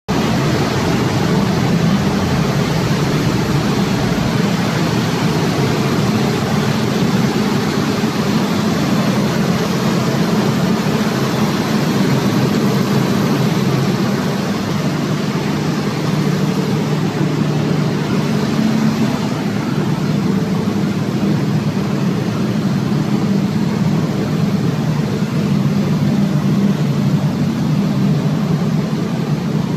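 Diesel generator set running steadily: a loud, even engine drone with a strong low hum and no change in speed.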